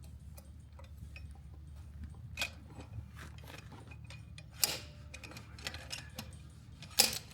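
Scattered metal clinks and knocks of hand tools working at a rear axle to get a bearing out, with two sharper knocks, one past the middle and one near the end, over a steady low hum.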